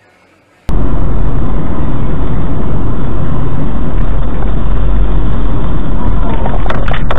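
Faint room tone, then about a second in a sudden switch to loud, steady car noise heard from inside the cabin: engine and tyre rumble with a heavy low end. A few sharp clicks come near the end.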